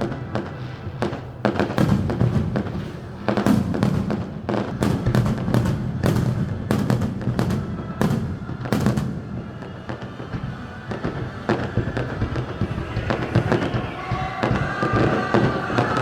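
Fireworks display: aerial shells bursting in a rapid series of sharp bangs for the first nine seconds or so, then thinning out, with music playing underneath.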